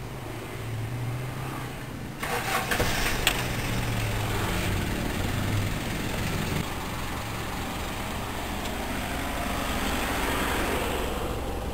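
A 2004 Kia Pregio van's engine cranks and catches about two seconds in, with a second or so of ragged cranking, then settles into steady running.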